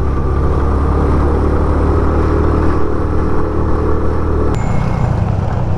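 Suzuki GS 150SE motorcycle's single-cylinder engine running steadily under way. About three-quarters of the way through, its note drops to a lower, rougher sound as the throttle comes off.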